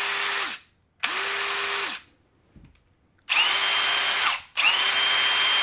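Two Bosch 18 V brushless cordless drill-drivers, a GSR 18V-110C and a GSR 18V-150C, spun with no load at full speed in second gear, one after the other with two trigger pulls each. The first pair of bursts is a steady motor hum. The second pair is louder and carries a high whistle, which the owner puts down to that drill's different ventilation slots and faster cooling air. Each burst winds down with a falling pitch.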